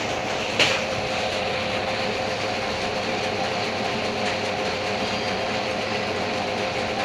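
Steady machine noise at an even level with a faint constant hum, and one sharp knock about half a second in.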